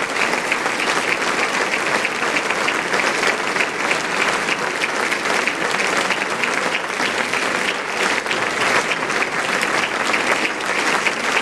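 Audience applauding: a dense, steady wash of many people clapping.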